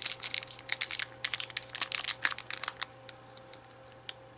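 Quick, irregular clicking and clattering of small metal parts as screwdriver bits are swapped out, dense for about three seconds and then thinning to a few single clicks. A faint steady hum lies underneath.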